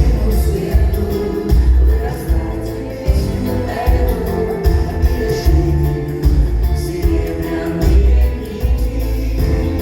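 Live pop song performed by a singer with full band backing, with a heavy, regular bass beat.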